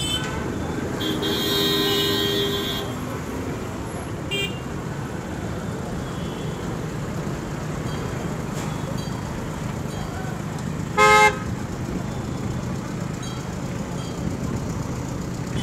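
Busy street traffic with engines running and vehicle horns honking: a longer high-pitched horn from about a second in, a short loud honk about eleven seconds in, and another loud honk at the very end.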